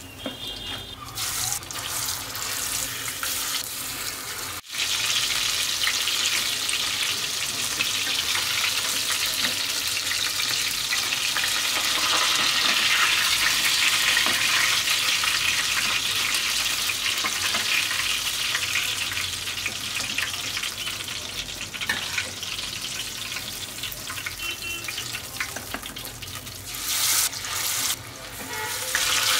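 Katla fish pieces frying in hot oil in a kadhai: a steady, dense sizzle that breaks off briefly twice.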